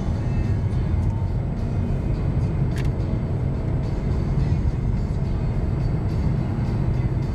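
Steady low rumble of a car's engine and tyres on the road, heard inside the moving car's cabin, with music playing along with it and a single brief tick a little under three seconds in.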